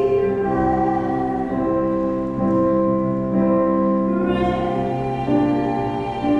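Live worship song sung through a PA system: voices holding long notes in harmony, with a choir and instrumental backing.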